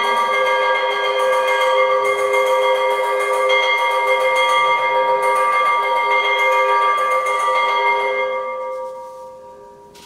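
Temple bells ringing continuously, a dense clangour with several steady ringing tones that dies away over the last two seconds.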